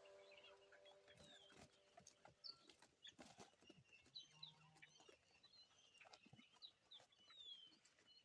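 Faint chirps of birds over near silence, with a few small scattered knocks.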